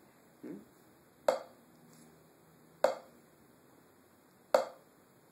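Vic Firth drumstick striking a practice pad three times: single, untimed wrist strokes about a second and a half apart, each a sharp tap from the same height.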